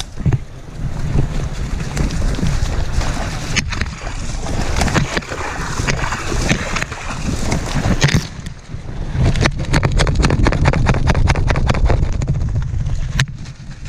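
Creek water splashing and heavy rubbing and buffeting on a camera worn by a hunting dog as the dog is handled in the water, with a run of rapid knocks and clicks about eight seconds in.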